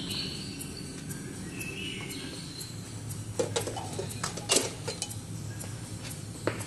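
Footsteps on a hard floor, a handful of sharp steps from about three and a half seconds in, over a steady low hum. A short, high chirping squeak sounds about two seconds in.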